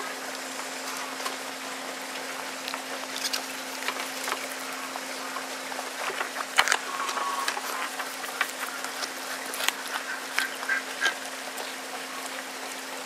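A goat biting and crunching raw apple and carrot slices off a metal tray, irregular crisp crunches and clicks, thickest in the second half. A faint steady hum runs underneath.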